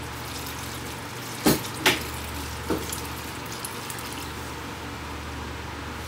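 Vinegar brine poured from a stainless steel stockpot onto chopped cucumbers in a pan, over a steady low hum. Three sharp knocks stand out, two close together about a second and a half in and one near three seconds.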